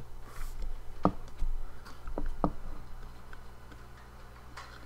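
Light clicks and taps of small metal hard-drive parts being handled while the drive is worked apart with a small Torx screwdriver. There are four or so sharp clicks in the first half, and it goes quieter after that.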